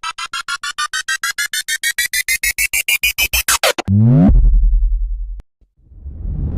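Synthesized sound effects: a rapid pulsing beep rises steadily in pitch for about four seconds. It gives way to a quick falling sweep into a low hum, which cuts off about a second and a half later. Near the end a noisy rumble swells up.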